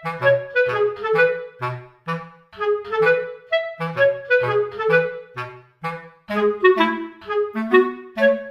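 Background music: a woodwind melody in short, detached notes over a bouncing bass line.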